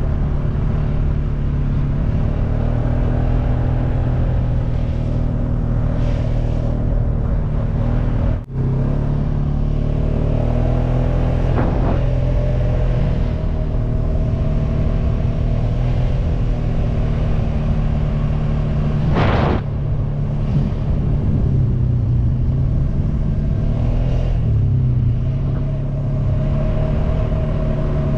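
ATV (four-wheeler) engine running at a steady cruise while being ridden, with a deep, even drone whose pitch drifts a little.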